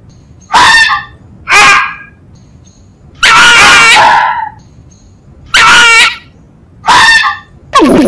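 Fox calling: a series of short, high, honking yelps about a second apart, with one longer drawn-out call about three seconds in.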